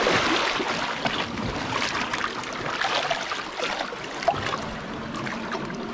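Shallow seawater lapping and trickling among rocks, with many small splashes and drips. A single short, sharp click stands out about four seconds in.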